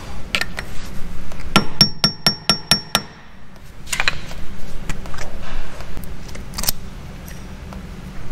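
Hand tools on a car's rear wheel hub: a quick run of about seven light, ringing metal taps, then scattered clinks and clanks of metal.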